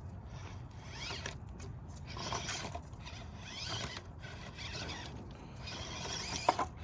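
Axial SCX24 Jeep Gladiator 1/24-scale RC crawler's small electric motor and geared drivetrain whining, rising and falling in pitch as the throttle is worked while it crawls. There is a sharp click near the end.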